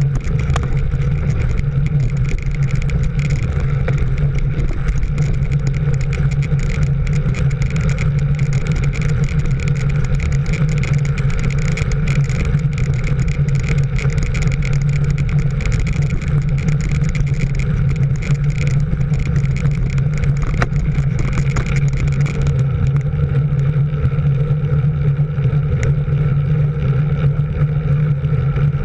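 Engine of a vehicle running steadily at cruising speed, heard from on board, an even drone with road noise.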